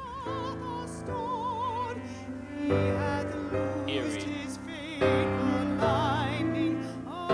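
Slow classical music: a high melody line with wide vibrato, operatic in character, over held low chords, with new, louder chords coming in about three and five seconds in.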